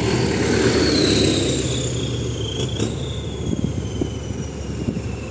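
Vehicle engines and road noise from traffic driving along, a steady low rumble, with a faint high whine that slowly falls in pitch.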